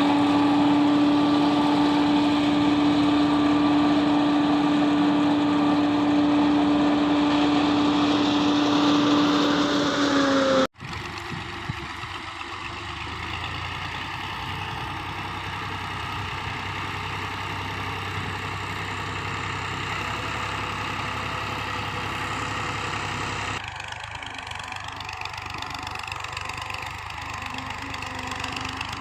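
Silage harvester machine and its engine running steadily with a strong whine. The whine dips slightly in pitch and cuts off suddenly about a third of the way through. A quieter steady engine-and-machine noise then runs, shifting abruptly again near the end.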